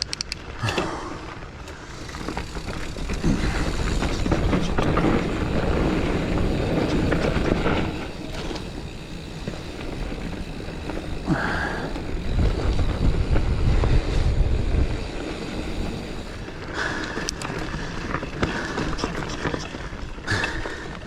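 Giant Fathom mountain bike riding a loose dirt trail: tyre noise on the loose soil and the bike rattling over the ground, with heavy wind rumble on the camera microphone, strongest about twelve to fifteen seconds in.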